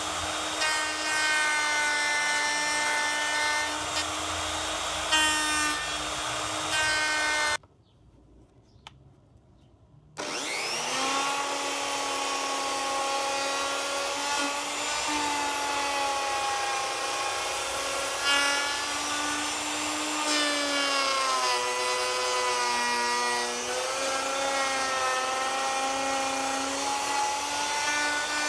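Black & Decker plunge router running as it routes wood: a steady motor whine whose pitch dips and recovers several times. About seven and a half seconds in it drops out for a couple of seconds, then spins back up with a rising whine and runs on.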